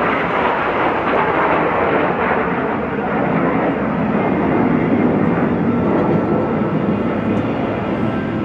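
Twin-turbofan Kawasaki T-4 jet trainers flying past: a loud, steady jet rush that deepens in pitch partway through.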